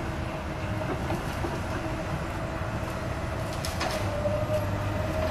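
Excavator's diesel engine running steadily with a wavering hydraulic whine above it, during tree-felling work. There is a sharper knock or clank about four seconds in.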